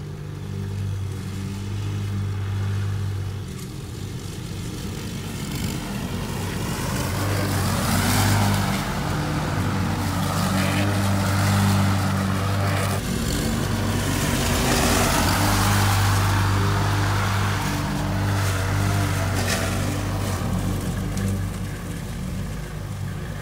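Lawn mower engine running steadily under cutting load while mowing wet grass, with a rushing noise that swells and fades several times.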